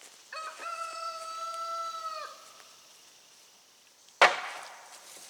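A drawn-out, steady high squeal lasting about two seconds, then a single loud sharp crack of wood about four seconds in, as the rotted deck is torn apart.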